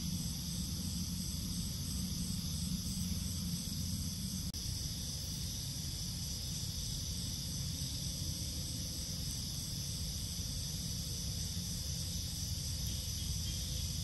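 Night insects, crickets or katydids, chorusing steadily in high, even trilling tones, over a constant low rumble.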